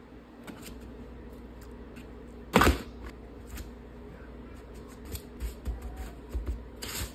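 Hands pressing a raw chicken breast into a plate of breadcrumbs: soft pats and crumb rustling, densest in the last couple of seconds. A single sharp thud comes about two and a half seconds in, and a steady low hum runs underneath.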